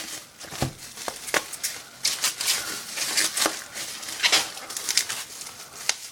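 Shipping box and its packing being handled and opened by hand: irregular rustling and crinkling with sharp clicks and taps.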